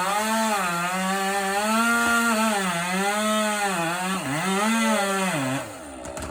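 Chainsaw cutting wood at high revs, its engine pitch sagging and recovering repeatedly as the chain bites. About five and a half seconds in, the revs fall away and the saw stops cutting.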